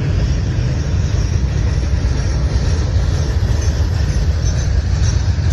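Freight train cars rolling past on the rails: a steady low rumble of steel wheels on track.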